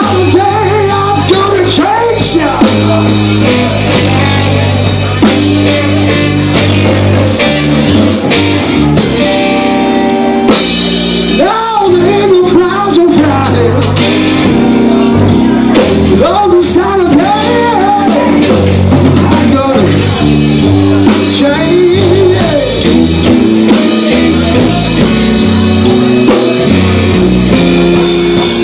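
Live rock band playing: electric guitar, bass guitar and drum kit, loud and continuous, with a melody line that bends and wavers in pitch over the bass.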